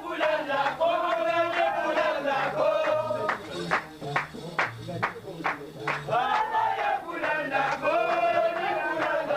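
Gnawa music: a group of men chanting in unison over the low plucked notes of a guembri and the steady clatter of qraqeb, about two to three strikes a second.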